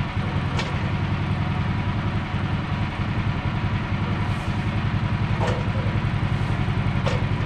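Portable bandsaw mill's small engine running steadily at idle, with a few faint light clicks over it.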